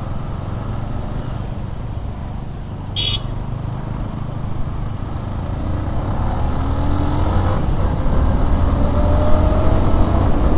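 Motorcycle riding on the road, engine and road noise running steadily, with a short horn beep about three seconds in. From about six seconds on the engine rises in pitch and gets louder as the bike accelerates.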